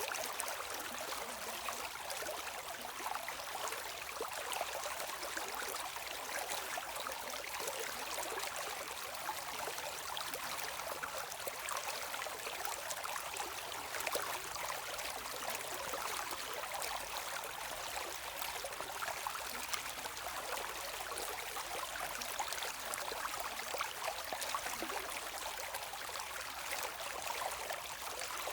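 Shallow stream running and trickling steadily, with many small splashes and bubbles over a continuous wash of water.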